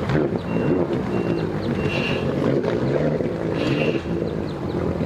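Personal watercraft (jet ski) engine running steadily at low throttle as the craft is driven slowly up to the ramp, its jet churning the shallow water.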